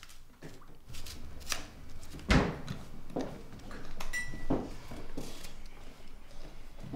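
Breakfast-table clatter: cups, plates, cutlery and packets handled and set down on a table, a string of light knocks and clicks with one louder knock about two seconds in.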